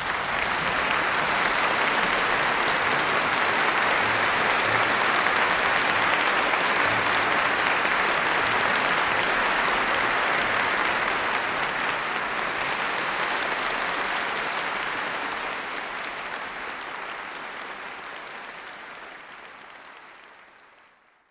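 Concert audience applauding steadily, then fading out gradually over the last several seconds.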